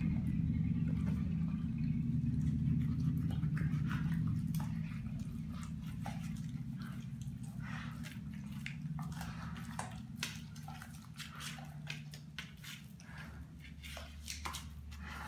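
Doberman chewing and biting at a whole raw tilapia, a run of short, sharp clicks and crunches that come thick and fast from about four seconds in, over a steady low hum.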